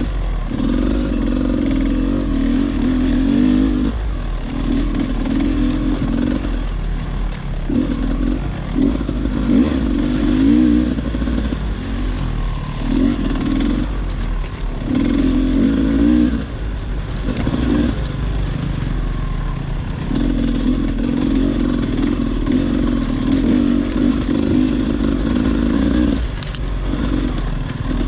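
Dirt bike engine on an off-road trail, the throttle opened and closed in repeated bursts of one to three seconds with short lulls between.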